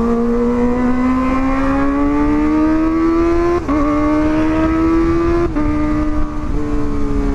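Kawasaki ZX-25RR's 250 cc inline-four running through an aftermarket Pro Liner exhaust, pulling under acceleration with a slowly rising pitch. It upshifts about three and a half seconds in and again about five and a half seconds in, then holds an even note, over low wind rumble.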